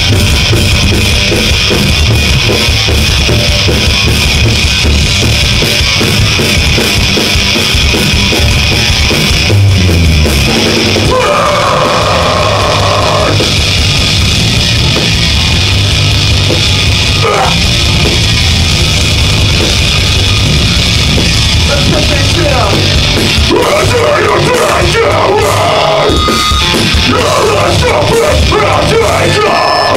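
Live metal band playing loud: heavily distorted electric guitars, bass and drums in a djent/beatdown style.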